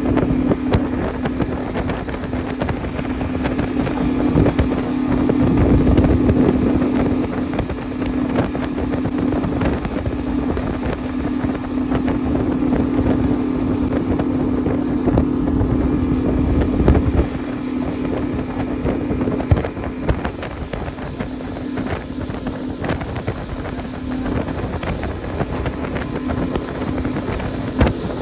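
Motorboat engine running with a steady hum while under way on the water, with wind buffeting the microphone.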